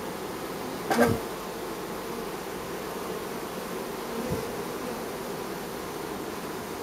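Honey bees crowding a hive entrance, a steady hum. About a second in a bee passes close, a loud buzz that drops sharply in pitch, and a fainter one passes about four seconds in.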